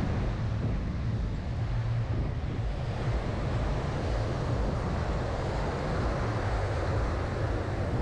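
Wind buffeting the microphone as a steady low rumble, over the wash of surf on a sandy beach.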